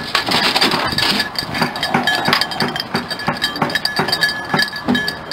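Small bells on beagles' hunting collars jingling and clinking as the dogs move and the collars are handled, over a run of light knocks.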